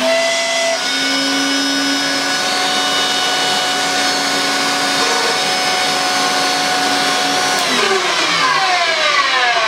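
Electrolux Twin Turbo Z522 upright vacuum cleaner's motor running after switch-on, a steady whine with several held tones; near the end its pitch starts to fall away. The noise comes from a dodgy bearing in the motor.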